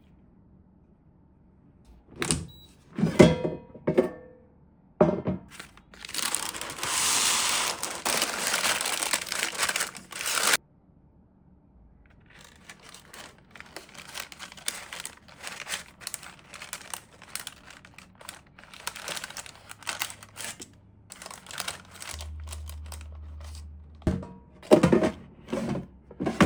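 Kitchen food-preparation handling sounds. A few knocks come first, then about four seconds of steady hissing noise. A long run of light crinkling and rustling follows, and two more knocks come near the end.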